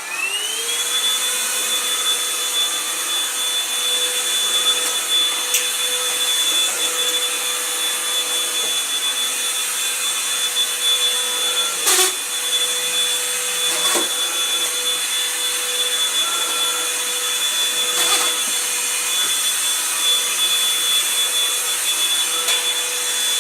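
Black+Decker 3-in-1 cordless stick vacuum running: its motor whine rises to full speed in the first second, then holds steady over a rush of air. A few sharp clicks come through it.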